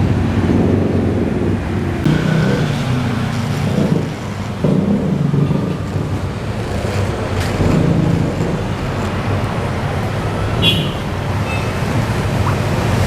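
Road traffic: motor vehicles running and passing close by, with a steady low hum underneath and swells as vehicles go past.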